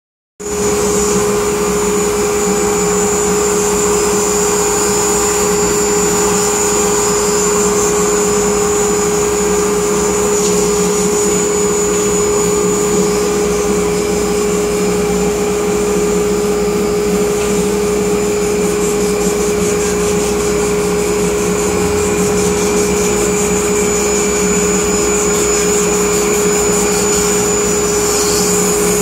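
Gerber Sabre 408 CNC router's spindle driving a surfacing cutter across the spoilboard to plane it flat, with the dust collector drawing chips off at the cutter. It is a loud, steady whine over an even rush of cutting and airflow.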